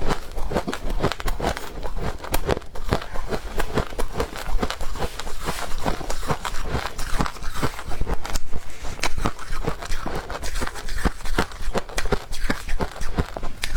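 Close-miked chewing of powdery freezer frost (snow ice), a steady run of rapid crisp crunches, several to the second.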